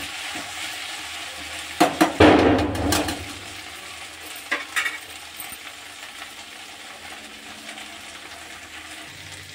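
Chopped okra frying in a kadhai with a steady sizzle. About two seconds in, a metal spatula clatters and scrapes against the pan for about a second, then a couple of clicks. After that the sizzle carries on more softly.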